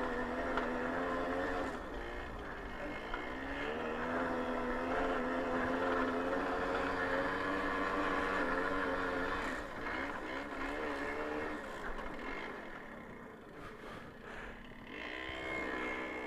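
Babetta 210 moped's single-cylinder two-stroke engine running under way. Its pitch holds steady for long stretches, dips briefly about two seconds in, then drops away after about ten seconds and runs lower and quieter before rising again near the end.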